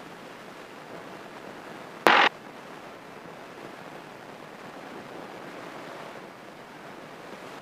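Steady hiss of a light aircraft's cockpit intercom audio during taxi. About two seconds in, it is broken by a single short, loud burst of static.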